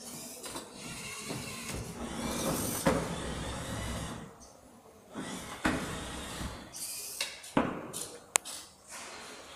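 Small wheeled competition robot driving across the table: its motors run unevenly and its frame rattles, with several sharp knocks and a short click near the end.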